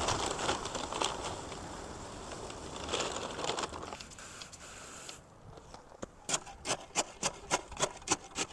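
Dry Quikrete concrete mix pouring from a paper bag into a post hole, with bag rustle and grit scraping. After a break, a regular back-and-forth rasping starts, about three strokes a second.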